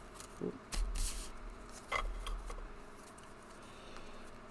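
A few soft taps and slides as a deck of cards is handled and set down on a table, in the first two seconds, then quiet room tone.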